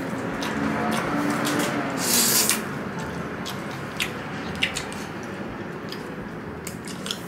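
Close-up eating sounds: pancit miki noodles slurped and chewed, with wet mouth noises and one louder slurp about two seconds in. A few small clicks follow.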